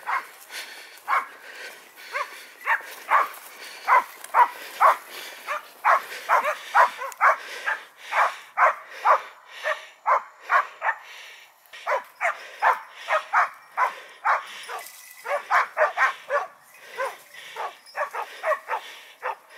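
Hunting dogs barking in a long run of short barks, about two a second, with a couple of brief breaks: hounds giving tongue on a wild boar.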